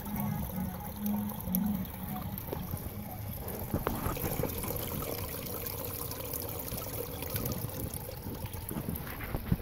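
Water pouring and trickling steadily, first churning into a water-filled cooler fed by PVC pipe, then running in a small creek. A brief knock comes just before the end.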